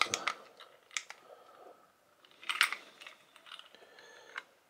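Light clicks and small metallic clinks from handling a portable electronic hanging scale and its hook while a fish is hung on it, the loudest clink about two and a half seconds in.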